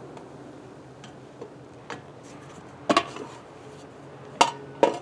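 Metal tools and parts clinking during car wheel and brake work: a sharp double clink about three seconds in, then two more near the end, each with a brief ring.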